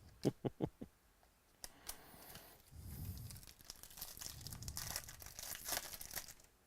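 Foil wrapper of a Topps Chrome baseball card pack being torn open and crinkled, a long crackly rustle over the second half. It is preceded by four short squeaky chirps in the first second.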